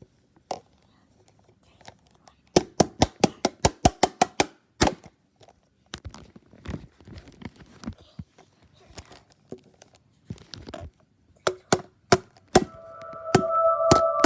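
A plastic Gatorade bottle being smashed: a fast run of about fifteen sharp cracks and knocks, then scattered smaller clicks and crinkles. A few harder hits follow, and a steady tone starts up near the end.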